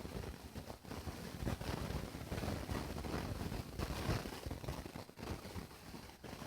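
Hiccups: a few soft, irregular jerks a second or more apart, over a steady background hiss.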